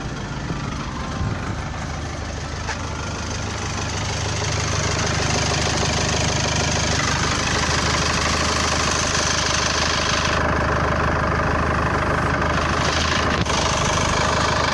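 2004 Mercedes Sprinter 2.2 CDI four-cylinder diesel idling steadily with a knocking clatter. The noise comes from the dual-mass flywheel, which has been welded up as a cheap cure for an idle rattle; it is still noisy, with a little bass in it. It gets louder about four seconds in.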